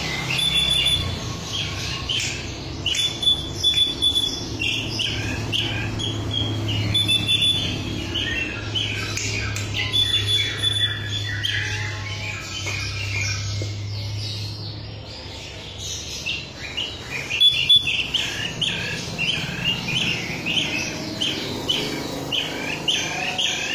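Pet bee-eater (kirik-kirik) calling: a long run of quick, repeated chirps, many to the second, with brief clear whistled notes here and there.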